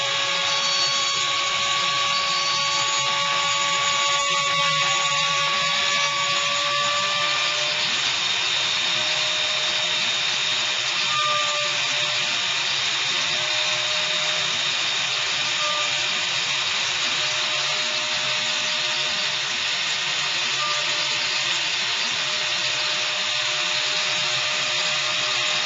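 CNC router spindle and cutter milling 19 mm MDF: a steady whine over a continuous cutting noise. The whine steps up slightly in pitch about seven seconds in.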